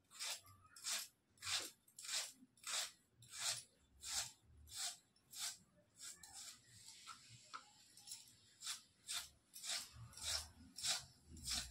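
Rhythmic scraping strokes, about one and a half a second, with a break of about two seconds just past the middle, typical of hand work in preparing fish or masala.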